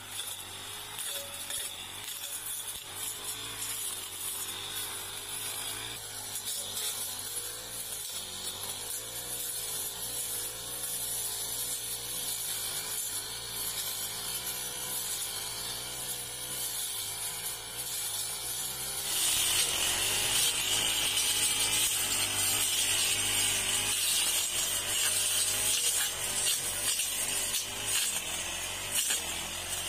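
Backpack petrol brush cutter running while it cuts through grass and weeds, its engine pitch wavering up and down throughout. A little past halfway it grows louder and harsher and stays that way.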